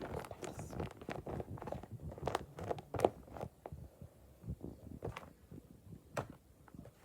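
Irregular soft clicks, crackles and squelches of slime-making materials being handled and mixed by hand, with a sharper click about three seconds in.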